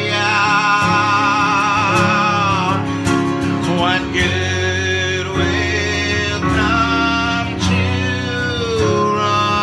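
A man singing a pop song with vibrato over instrumental accompaniment.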